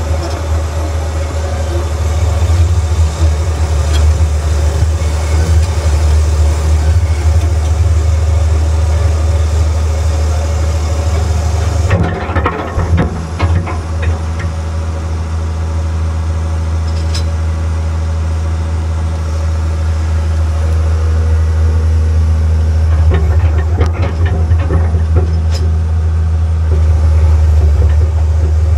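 Tracked excavator's diesel engine running steadily with a deep hum, with bursts of metal clanking about halfway through and again near the end.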